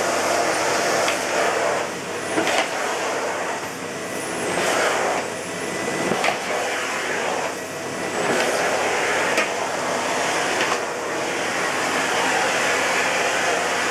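Miele S256i canister vacuum cleaner running: a steady rushing drone with a faint high whine, swelling and dipping about once a second.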